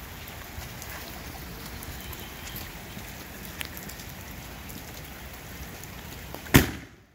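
Steady rain falling on pavement, then about six and a half seconds in a single loud boom as a Great Grizzly Premium Willow consumer mortar shell is fired out of its tube by the lift charge.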